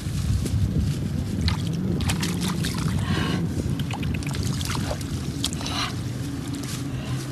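Hands splashing and squelching in a shallow muddy puddle while feeling for fish, with several short wet splashes, the longest about three seconds in, over a steady low rumble.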